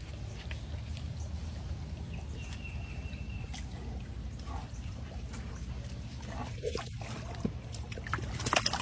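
A tiger cub laps water from a shallow rocky stream while the water trickles steadily over the stones. The lapping and splashing grow louder near the end.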